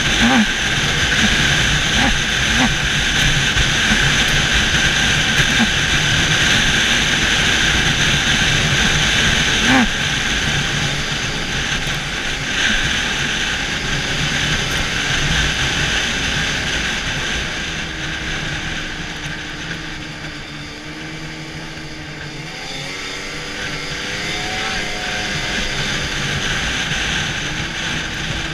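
Arctic Cat snowmobile running at trail speed, heard from the rider's seat: a steady engine and drivetrain whine with a rushing haze and a few short knocks from bumps early on. About two-thirds of the way through it eases off, the engine note lowering and wavering, then it picks up again near the end.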